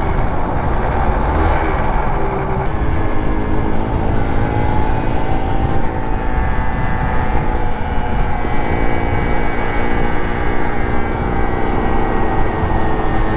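Piaggio Zip scooter's small engine running steadily at riding speed, its pitch shifting slightly as the throttle changes, with heavy wind rumble on the microphone.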